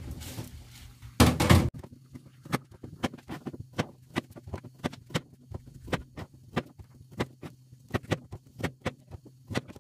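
Kitchen knife slicing garlic cloves on a cutting board: a steady run of sharp taps, about three a second, after a louder bump about a second in.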